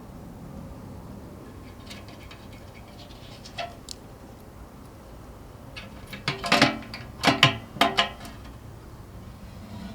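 The door and lock of a Keystone fire alarm box being worked open: a few faint ticks, then a quick run of sharp clicks and clanks with a brief ringing, about six to eight seconds in.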